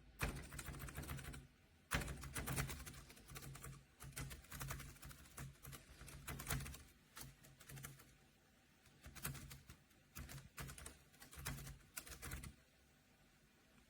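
Typing on a Keychron K3 Version 2 low-profile mechanical keyboard: rapid key clicks in runs of a few seconds, with short pauses, the longest about seven and a half seconds in.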